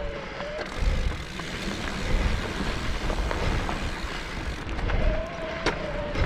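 Electric mountain bike's motor whining under pedal assist while the tyres roll over dirt and rock, with scattered knocks and rattles from the bike. The whine drops out about half a second in and comes back near the end.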